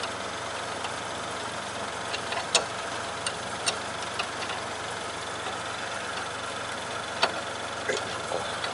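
Car engine idling steadily, with a few scattered sharp clicks and taps of small parts being handled, the loudest about two and a half and seven seconds in.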